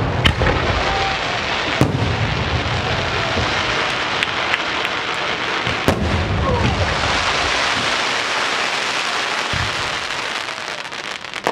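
Fireworks going off: a dense, continuous crackle with a few sharp bangs and short whistling glides. The crackle thins out near the end.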